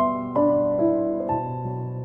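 Piano playing slow, sustained chords, with a new chord or note struck about every half second.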